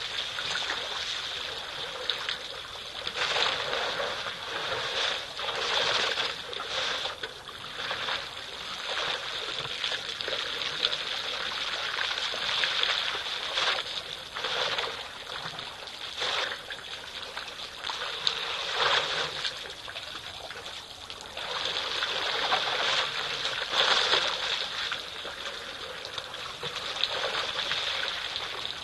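African elephants drinking at a waterhole, with water trickling and splashing from their trunks in uneven splashes every second or two.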